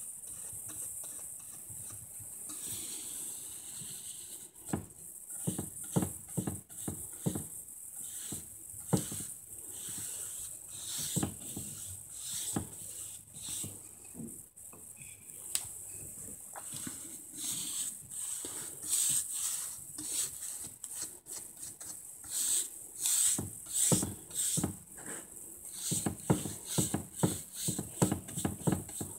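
Paintbrush bristles stroking amber shellac onto bare wood: irregular scratchy, swishing strokes over a steady high hiss, coming thicker and faster near the end.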